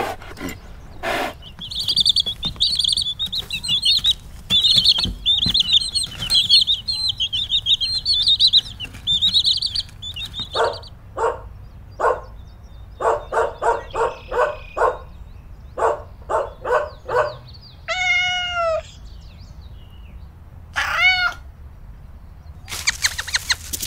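A sequence of animal calls: several seconds of rapid high chirping, then a run of short repeated calls, then two drawn-out cat meows, each rising and then falling in pitch.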